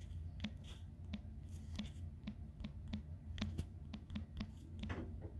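Fingertips tapping on a smartphone's touchscreen keyboard while typing a search: a quick run of small clicks, about three a second, over a low steady hum.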